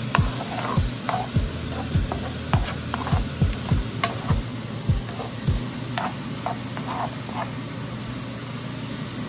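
Sliced bell peppers and red onions sizzling in a hot pan while being stirred with a wooden spoon. Low knocks from the stirring come about twice a second and stop a little past halfway, while the sizzle goes on.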